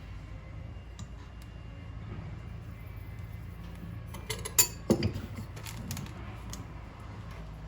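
A few short clicks and knocks, bunched together about four to five seconds in, over a steady low hum.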